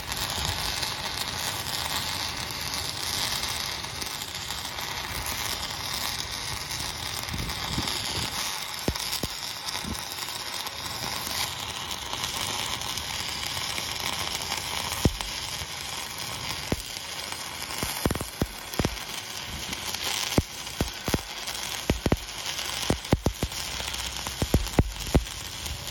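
Stick-welding arc from a cellulose pipeline electrode running the hot pass on a steel pipe branch joint: a steady crackling hiss, with sharp pops that come more and more often in the second half.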